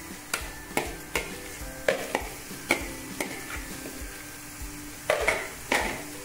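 A metal spoon knocking and scraping as marinated chicken is scraped from a plastic bowl into a pan of hot frying masala, over a steady sizzle. The knocks come irregularly, a dozen or so, with a cluster of louder ones near the end.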